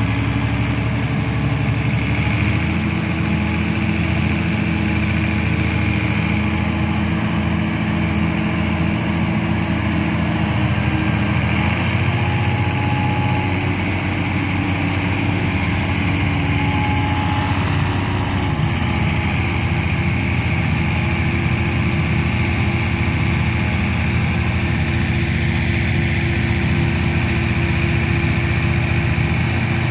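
John Deere 6140R tractor engine running steadily as the tractor pulls a heavily loaded potato trailer through deep mud. Its note shifts about twelve seconds in and again near twenty seconds.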